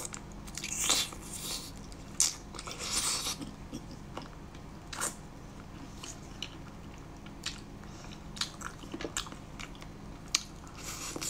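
A person biting and chewing spicy chicken feet: irregular small crunches and wet clicks of skin and cartilage, busiest in the first few seconds and sparser after.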